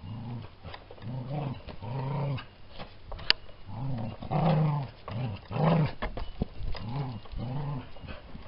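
A dog growling in a string of about ten short calls that rise and fall in pitch. A single sharp click comes a little past a third of the way in.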